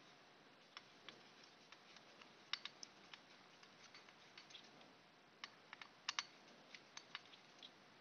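Faint, irregular clicks and ticks of a small screwdriver turning screws in the metal plate of an LED light cluster, some coming in quick pairs.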